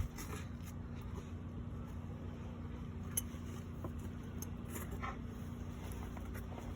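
Steady low background drone with an even hum, with a few faint clicks about three and five seconds in.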